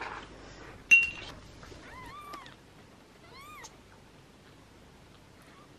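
Newborn kittens mewing: two thin, high mews, each rising and falling in pitch, after a short sharp sound about a second in.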